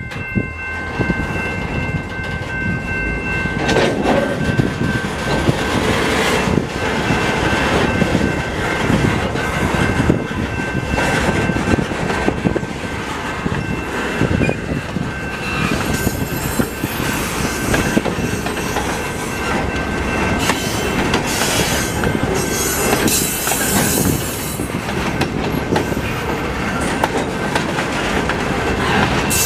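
Freight box cars rolling past close by: a steady rumble of steel wheels on the rails with frequent knocks over the track. A steady high tone sounds for the first few seconds, and high squeaks and hiss from the wheels come in about halfway through.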